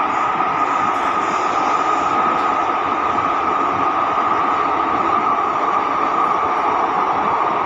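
Cabin noise of an SMRT C151C metro train running between stations: steady wheel-on-rail rumble with an echoey hum from its traction motors, unbroken throughout.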